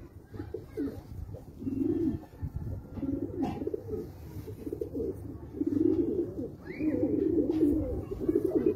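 Domestic Kandahari pigeons cooing, with low, repeated, overlapping coos that become almost continuous in the second half.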